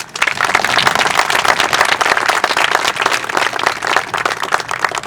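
Audience applauding, with many hands clapping. It starts right away, stays full, and thins to scattered claps near the end.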